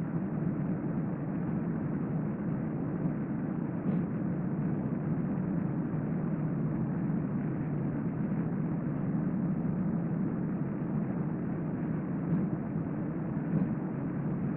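Steady low rumbling background noise, unchanging throughout, with a few faint ticks; no breathing or snoring stands out from it.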